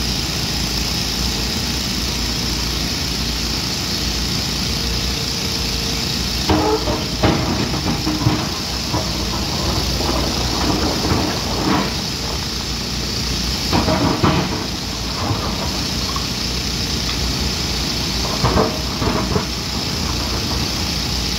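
Hyundai 215 excavator's diesel engine running steadily, with short bursts of knocking and clanking several times: a few seconds in, in the middle and near the end.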